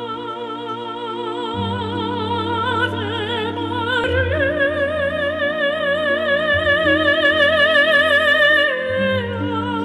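Background music: a high melody held in long notes with wide vibrato, operatic in style, over low sustained chords. The melody steps up about four seconds in and drops back down near the end.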